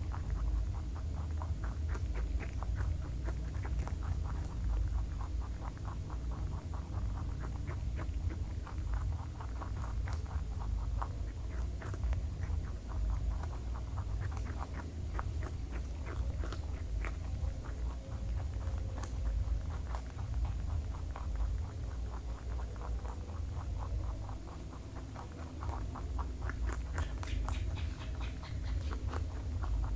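Two rabbits gnawing and chewing a raw carrot: a rapid, steady run of crisp crunches, picked up close by a small microphone beside them.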